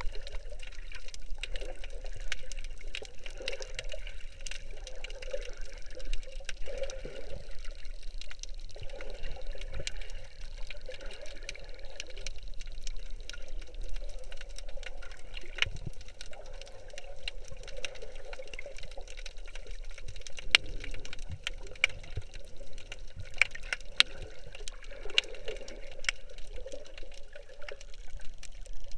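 Underwater sound heard through an action camera's waterproof housing: a muffled, steady wash of water with many small sharp clicks and crackles scattered throughout.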